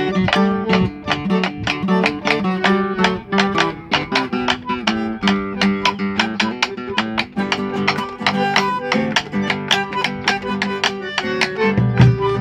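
Acoustic guitar and bandoneón playing together with no voice: a quick run of plucked guitar notes over long held bandoneón tones.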